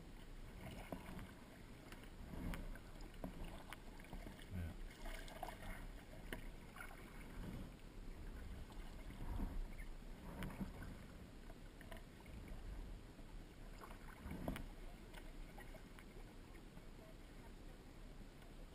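Faint, irregular splashes and sloshing of water from kayak paddling, coming every second or two.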